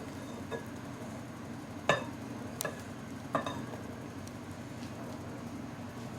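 Saucepan and spoon clinking against a mixing bowl as a hot cocoa and peanut butter mixture is poured over oats. There are a few sharp clinks, the loudest about two seconds in and again about three and a half seconds in, over a steady low hum.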